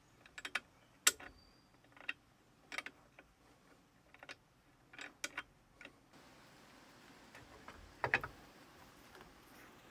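Irregular metallic clicks and ticks from a hand ratchet and socket being worked on a bolt down by the alternator, with a louder clank about eight seconds in.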